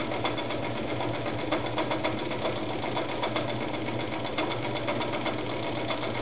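Adler Matic 153A electric sewing machine sewing steadily, with a motor hum under a fast, even clicking of needle strokes. Its pattern cam disc is engaged, so it is sewing a cam-controlled decorative zigzag stitch.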